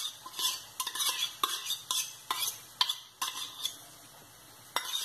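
A metal spoon scooping margarine, scraping and clinking against a small metal bowl and the plastic mixing bowl in quick irregular strokes. The strokes ease off for about a second near the end, then one sharp clink.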